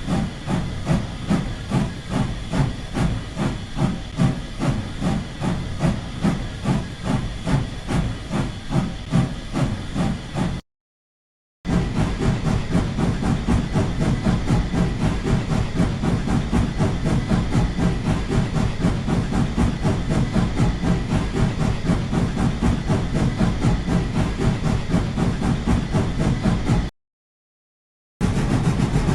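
Rhythmic hissing pulses, about two a second. After a short silence about ten seconds in, they return faster, about four a second. They stop again briefly near the end.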